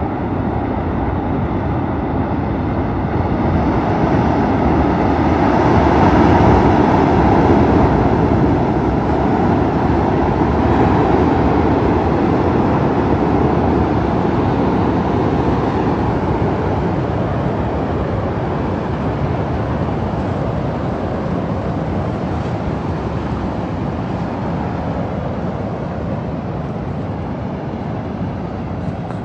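Floodwater rushing down a swollen river: a loud, steady noise with a deep rumble, swelling for several seconds early on and easing slightly toward the end.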